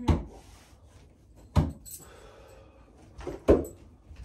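Bo-shuriken (steel throwing spikes) striking a wooden target board three times, about one and a half to two seconds apart, each a sharp knock. Between the strikes the spikes held in the hand clink faintly against each other.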